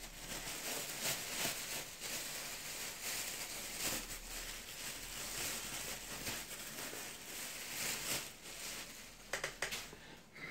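Faint rustling and handling noises from someone picking things up, with a quick run of clicks near the end.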